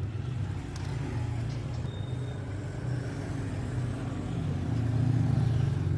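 A low, steady mechanical hum that swells louder near the end.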